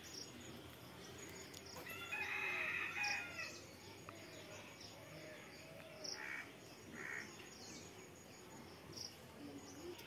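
A rooster crows once, about two seconds in, a single call lasting about a second and a half. A few short bird calls follow later, over faint outdoor background.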